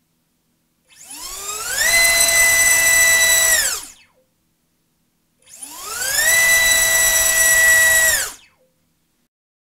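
BrotherHobby Tornado T1 1407 3600KV brushless motor spinning a DAL T3045 three-blade 3-inch prop on a thrust stand. Twice it spins up with a rising whine, holds a steady high whine for a second or two at full throttle, then spins down.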